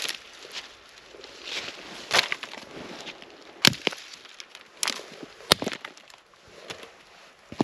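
Dry dead sticks and twigs snapping as they are broken into kindling: five sharp cracks roughly a second apart, with the crackle and rustle of a bundle of brittle twigs being handled between them.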